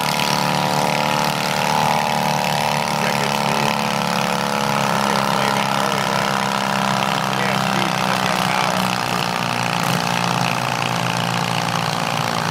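Small garden-tractor engines running steadily, one of them working under load as the garden pulling tractor drags the weight sled down the track.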